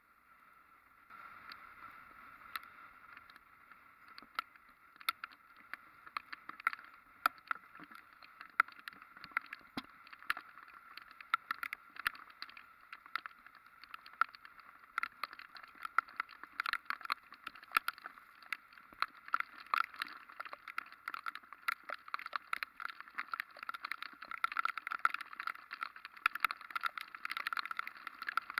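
Raindrops striking a camera on a moving motorcycle: a steady hiss with many sharp ticks, starting about a second in and coming thicker and louder toward the end.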